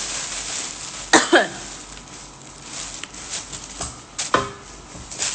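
Quiet food-handling and eating noises over a steady background hiss. Two short, sharp vocal noises come about a second in and another just after four seconds, without words.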